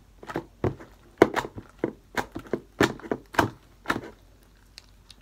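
Homemade PVA-glue slime being kneaded and stretched by hand in a plastic tub: a quick, irregular run of sharp wet clicks and slaps that stops about four seconds in.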